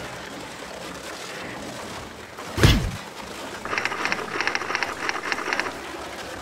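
Title-card sound effects over a steady hiss: a single heavy stamp thud about two and a half seconds in, then about two seconds of rapid typewriter-style key clicks.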